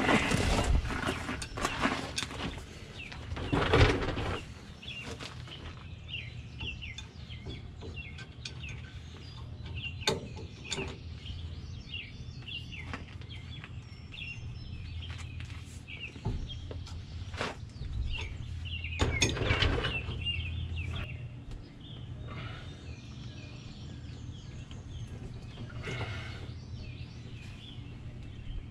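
Birds chirping and calling throughout over a steady low hum, with occasional sharp clicks and a few louder scraping bursts from hand tools working a hydraulic line fitting under a truck.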